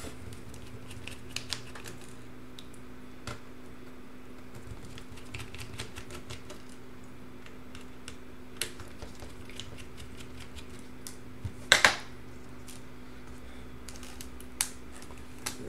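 Small, scattered clicks and taps of a screwdriver backing out the keyboard screws of a Dell Latitude D420 laptop. A few louder knocks come together about twelve seconds in, over a steady low hum.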